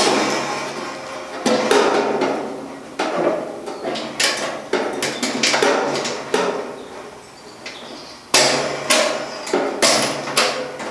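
Metal upper warming rack knocking and rattling against the gas grill's sheet-metal body as its hooked ends are squeezed and worked into the mounting bosses: a string of sharp metallic knocks with short ringing, a cluster of loud ones near the end.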